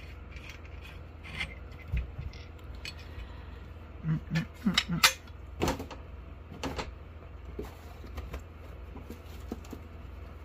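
Threaded metal handle sections of a multifunction survival shovel being unscrewed and handled: light rubbing and small clicks, then a cluster of metal clinks and knocks about four to seven seconds in.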